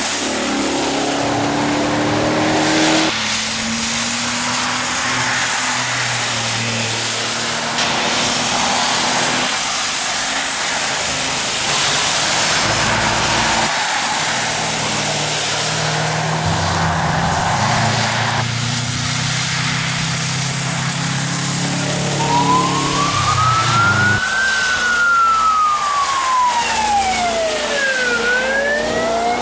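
Rally cars driving past on a wet road in heavy rain, engines running under a steady hiss of rain and tyre spray. Near the end one engine's pitch climbs, falls away over a few seconds, then climbs again.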